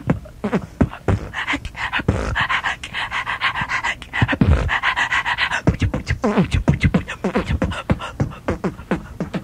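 Human beatboxing: a rhythm of mouth-made drum clicks and hissing hi-hat sounds.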